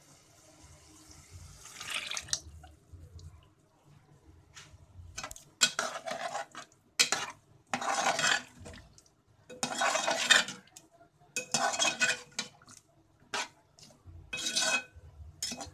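Chickpea cooking water is poured into the pot over the first couple of seconds. Then a steel spoon stirs the chickpea curry in a metal pot, scraping the metal and sloshing the thin gravy in short strokes about once a second.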